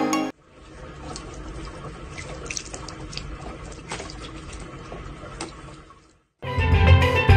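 Water from a tap running steadily into a sink while a cat drinks from the stream, with a few faint clicks and splashes.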